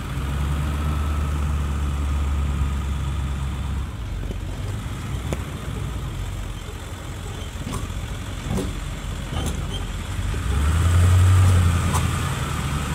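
Truck engine running while driving over rough ground, its drone louder for the first four seconds and again about eleven seconds in. A few light knocks come through between.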